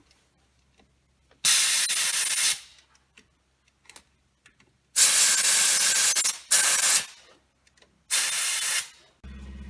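Aerosol intake cleaner sprayed from a can into the ports of an engine's upper intake manifold in four bursts, each half a second to a second and a half long, the second and third almost back to back.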